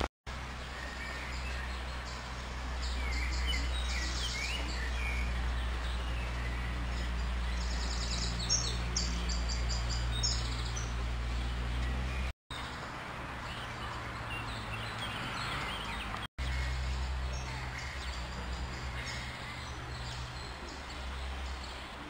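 Outdoor ambience of songbirds chirping and trilling over a steady low rumble, with the busiest bird song about three seconds in and again from about eight to ten seconds in. The sound drops out for a split second three times.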